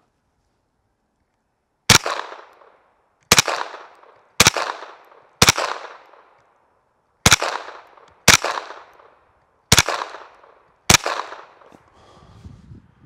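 Eight shots from a Thompson/Center TCR22 semi-automatic .22 LR rifle, fired roughly one a second at uneven gaps, each sharp crack trailing off in an echo.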